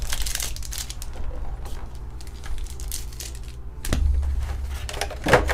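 Clear plastic packaging trays crackling and clicking as they are handled, with a sharp click about four seconds in and a louder crack near the end, over a steady low hum.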